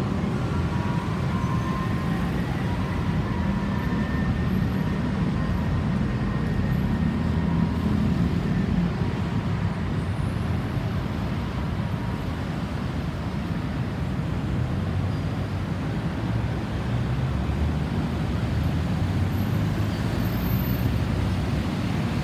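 Steady low rumble of road traffic and vehicle engines, with a faint steady tone in the first few seconds.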